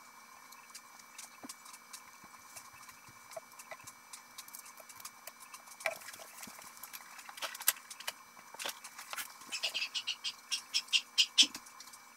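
Small clicks and taps from handling metal bottle caps and a mini hot glue gun on a wooden table, with a quick run of sharp clicks near the end. A faint steady hum sits underneath.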